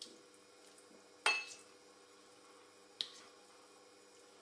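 Serving ladle knocking against the wok as beef and potato stew is scooped out: two short clicks, the louder one about a second in and a sharper, briefer one near three seconds.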